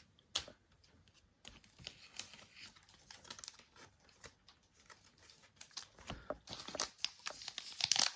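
Crinkling and rustling of a trading-card pack wrapper and cards being handled, sparse and faint at first, then denser and louder over the last few seconds.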